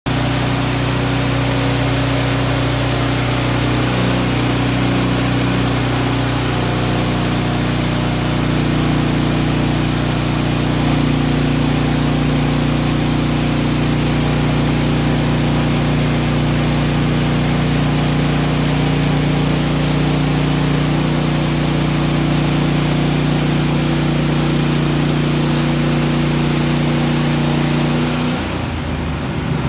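Sawmill machinery running steadily, its engine-like drone shifting pitch slightly a few seconds in and again about ten seconds in, then dropping away near the end.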